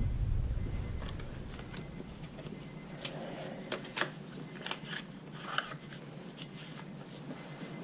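Scattered light clicks and taps, a few at a time from about three seconds in, as small hard parts such as new spark plugs and their packaging are handled.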